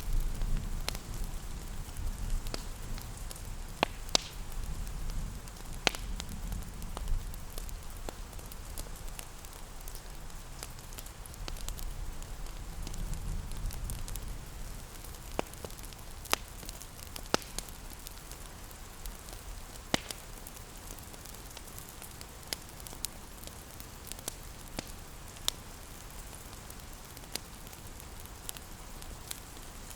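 Fireplace crackling, with irregular sharp pops, over a steady hiss of rain. A low rumble swells in the first few seconds and again near the middle.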